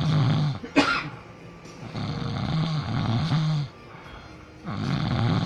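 A person snoring, three long snores about two seconds apart, each with a low pitch that rises and falls, and a short sharp snort about a second in.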